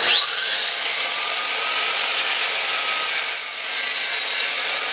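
Miter saw motor starting with a fast-rising whine, then running steadily at full speed as the blade is lowered through a small block of wood held in a jig. The whine sags a little about four seconds in while the blade is in the cut.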